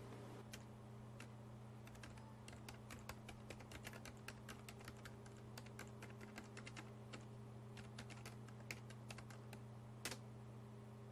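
Faint, quick, irregular light clicks, several a second, over a steady low hum, with one sharper click near the end.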